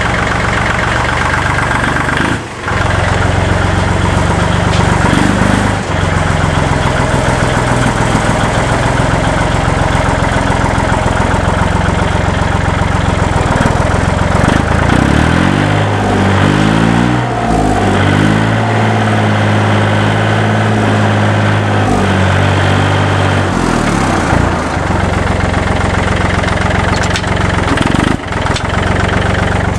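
Kubota backhoe tractor's diesel engine running. The engine speed falls and rises a couple of times past the middle, then settles back to a steady run.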